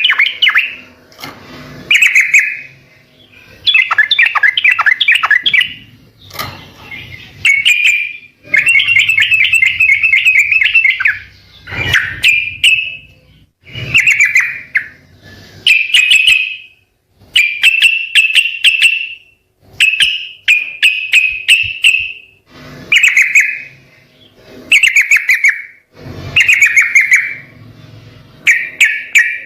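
Yellow-vented bulbul (trucukan) singing: a long run of short, bubbly, warbling phrases, about one every two seconds, with brief pauses between them.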